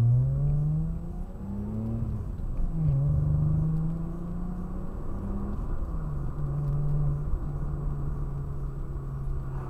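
Car engine heard from inside the cabin, accelerating away and shifting up through the gears: the engine note rises, drops back at gear changes about three and six seconds in, then holds steady at cruising speed.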